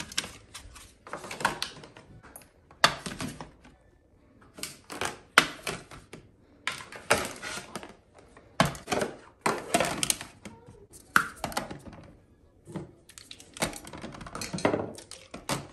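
Toiletry bottles, toothpaste tubes and small plastic storage bins being picked up and set down on glass cabinet shelves: an irregular run of light knocks, clatters and rattles.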